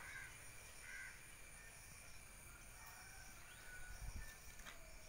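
Faint crow caws: two short calls in the first second, over a quiet background with a brief low rumble about four seconds in.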